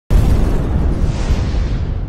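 Logo-reveal sound effect: a cinematic boom that hits suddenly and then rumbles on, its hiss slowly fading.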